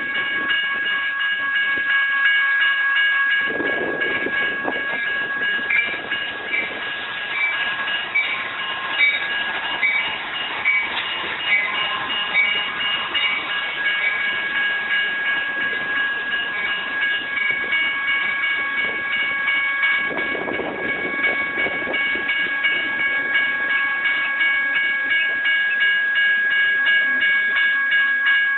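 A grade crossing's General Signals type 1 electronic warning bells ring steadily and repeatedly. About three seconds in, a passenger train led by locomotive CDTX 2004 begins rolling through the crossing, its wheels and cars rumbling and clattering over the rails until near the end.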